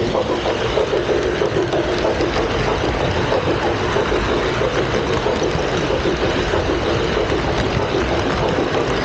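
Model train running along the layout's track, heard from a car riding in the train: a steady rolling rattle of wheels on the rails with a wavering hum.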